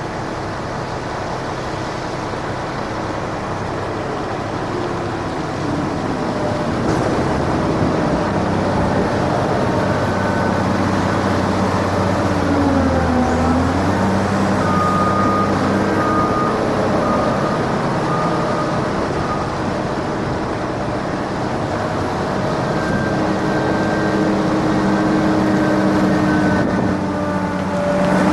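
Heavy diesel earthmoving machinery, a wheel loader and a dump truck, running steadily, with the engine note dipping and rising as the loader works and growing louder over the first several seconds.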